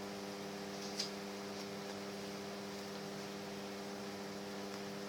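Steady electrical hum, with one faint tap about a second in.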